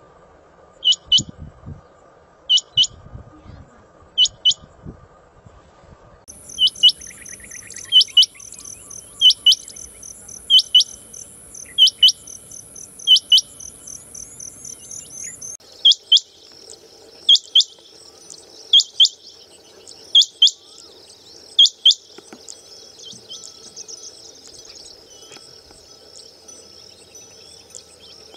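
Rain quail calling: a sharp high double note, repeated about every one and a half seconds, over a steady high hum. The calls stop for the last six seconds or so, leaving the hum alone.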